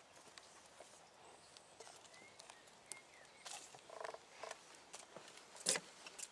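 Faint footsteps on a wooden plank boardwalk: scattered light knocks, with one louder knock near the end.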